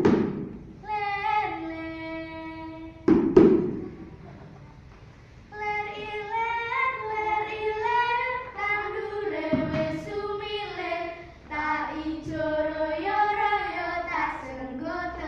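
A small group of children singing a song together in unison, holding long notes in the first seconds and then singing a moving melody after a short pause. Two sharp, loud knocks, one at the very start and one about three seconds in, are the loudest sounds.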